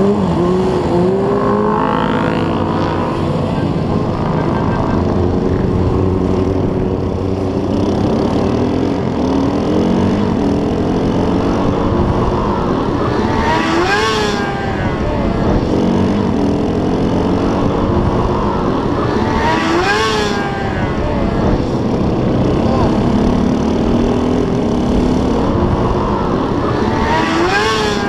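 Dirt bike engine heard from an on-board camera, revving up and dropping back again and again as it accelerates through the gears, with other motorcycles running close by. Three harder revs climb highest, about halfway, about two-thirds of the way and near the end.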